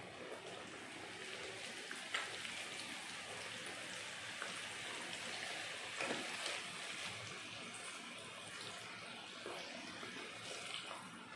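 Potato pakoras deep-frying in hot oil: a steady sizzle and crackle of bubbling oil, with a few sharper pops, the clearest about two seconds and six seconds in.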